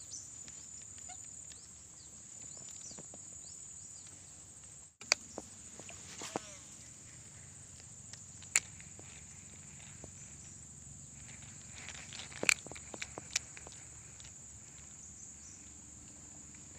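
Steady high-pitched insect buzz, with scattered sharp clicks and knocks. A brief drop-out comes about five seconds in, followed by a sharp click.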